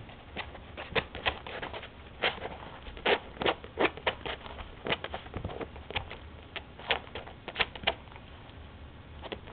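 Miniature dachshund puppy's claws scratching and digging at the base of a couch in quick, irregular flurries of short scratches, several a second, that pause now and then.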